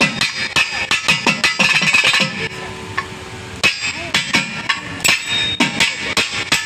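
Carnatic percussion solo (thani avartanam): a fast run of hand-drum strokes with bass strokes that bend in pitch. The playing eases into a brief lull about two and a half seconds in, then picks up again.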